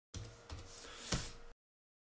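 Computer keyboard keystrokes: a few light taps, with one louder tap about a second in, over a faint steady electrical hum.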